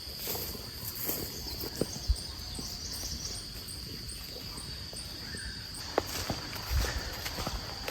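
Insects droning steadily at one high pitch, with a faint fast ticking above it, and scattered footsteps and small knocks.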